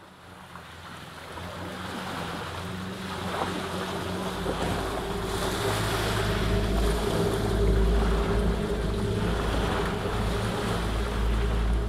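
Ocean waves surging and splashing against rocks, with wind noise. The sound fades in and swells, and a low steady hum runs beneath it.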